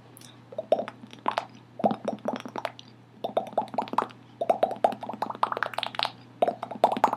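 A bubble noise made with the mouth: quick runs of short, wet popping sounds, several pops to a run, with brief pauses between runs.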